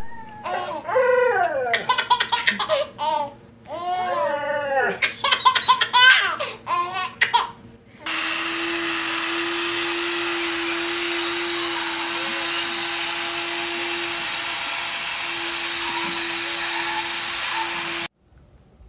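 Baby laughing in repeated bursts of giggles and belly laughs for several seconds. Then a steady, even mechanical-sounding noise with a steady hum starts abruptly, runs for about ten seconds and cuts off suddenly.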